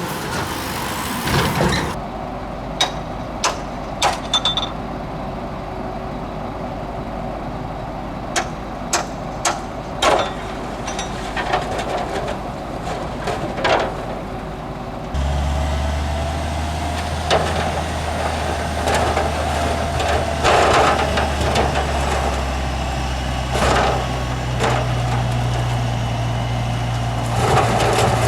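Heavy diesel earthmoving machinery at work: sharp metallic clanks over a low engine rumble. About halfway through, the sound changes abruptly to a loud, steady low diesel engine drone, with further clanks over it.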